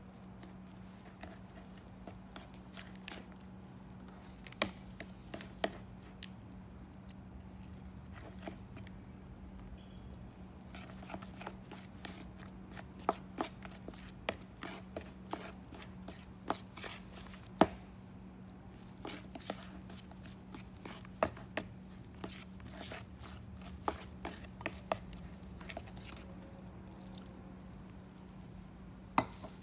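Metal spoon stirring dry muffin mix in a plastic mixing bowl: irregular scrapes and sharp clicks of the spoon against the bowl, over a steady low hum.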